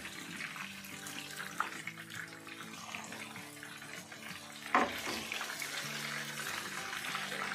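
Fish pieces sizzling steadily as they deep-fry in hot oil in a frying pan, with a metal utensil clacking against the pan once faintly about a second and a half in and more sharply about five seconds in. Soft background music runs underneath.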